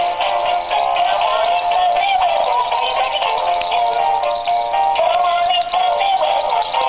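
Animated Christmas plush toy playing an electronic Christmas song with a synthetic-sounding singing voice; the sound is thin, with almost no bass.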